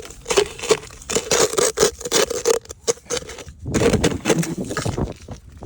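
A plastic cup scraping and knocking at ice on a car: a quick, irregular run of scrapes and strikes, with a denser stretch of scraping about four seconds in.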